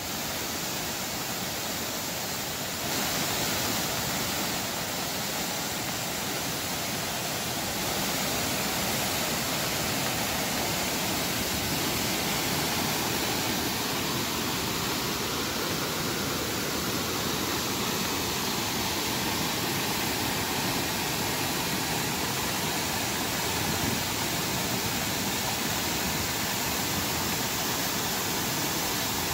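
Swollen floodwater rushing and pouring, a steady dense noise of churning water that gets a little louder about three seconds in.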